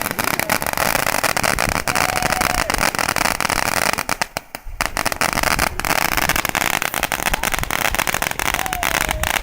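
Consumer fireworks going off: dense, rapid crackling and popping, with a short lull about four and a half seconds in.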